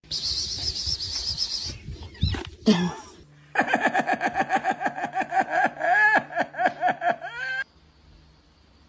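A person laughing in quick, rhythmic bursts for about four seconds, stopping abruptly. It follows a shorter high-pitched fluttering sound at the start.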